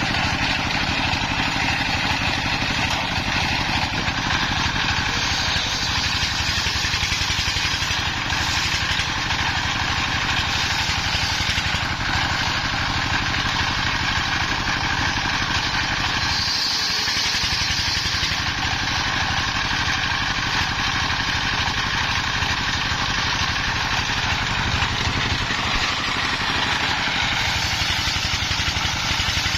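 Single-cylinder Dongfeng 24 hp diesel engine running steadily, driving a homemade circular sawmill. About halfway through there is a brief brighter, higher hiss for a couple of seconds.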